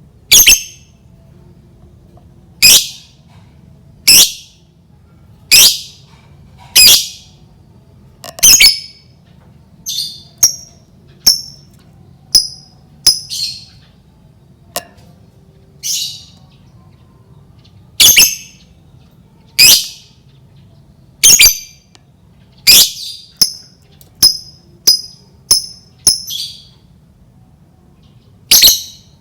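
Lovebird giving short, shrill high-pitched calls, one every second or two, coming in a quicker run near the end, over a faint low steady hum.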